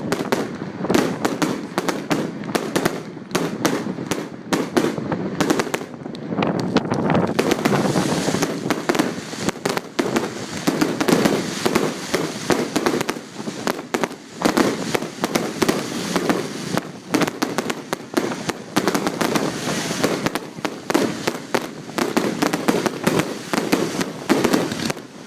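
Fireworks going off in a dense, rapid string of bangs and crackles without a break, stopping suddenly at the end.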